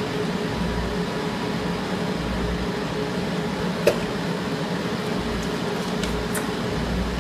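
Continuous electromagnetic induction foil-sealing machine running: a steady hum of its cooling fan and conveyor, with one sharp click about four seconds in.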